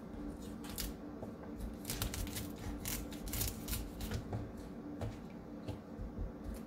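Chef's knife cutting the leaves away from a raw cauliflower head on a cutting board: a string of short, crisp crunches and snaps, several a second, as the blade goes through the leaf stalks.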